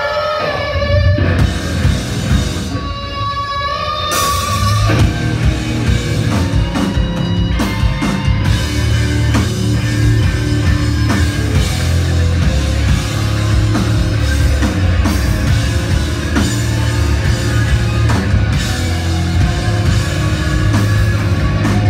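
Rock band playing live in an instrumental passage: a sparse electric guitar figure, then about five seconds in the drums and full band come in loud, with electric guitars and drum kit playing on steadily.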